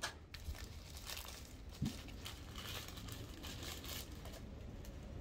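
Plastic packaging crinkling and rustling as drone kit parts are handled, with a single light knock a little under two seconds in.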